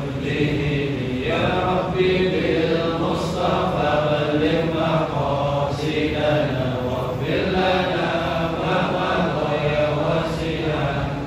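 Men's voices chanting an Arabic religious recitation together, as a congregation does when following a led reading. The chant moves in phrases of a few seconds with brief breaks between them.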